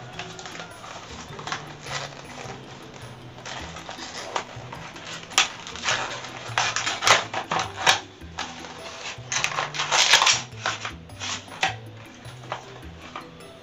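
Unpacking a small phone camera lens kit: the paper box and plastic packaging rustle and crinkle, with light clicks and clinks of the small lens pieces. The handling is busiest about five to eight seconds in and again around ten seconds, the loudest stretch.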